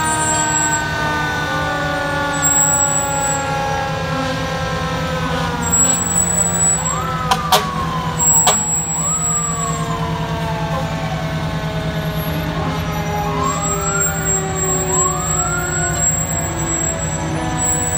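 Fire trucks passing with their heavy engines running and a siren slowly winding down in pitch. Four short siren whoops rise and fall over it, two near the middle and two later, with a couple of sharp clicks in between.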